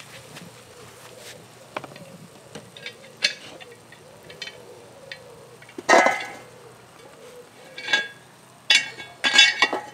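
Cast-iron Dutch oven lid clanking against charcoal briquettes and the metal fire pit as it is set down on the coals: a few light clicks at first, a loud ringing clank about six seconds in, another near eight seconds and a rattle of clanks near the end.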